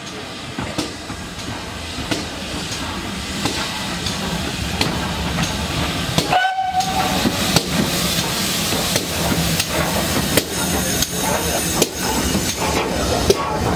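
Great Western 4-6-0 steam locomotive No. 6960 and its coaches running slowly past, with hissing steam and the clicking and clanking of wheels on rail joints, growing gradually louder as the train draws alongside. A brief pitched note sounds about halfway through.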